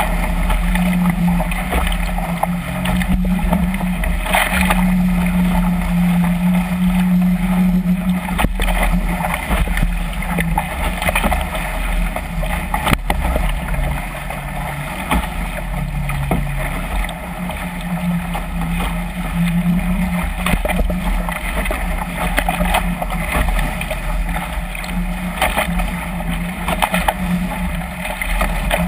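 Water rushing and splashing along a Chrysler Musketeer catamaran's hull as it sails fast through waves, with wind buffeting the microphone. A low hum swells and fades throughout.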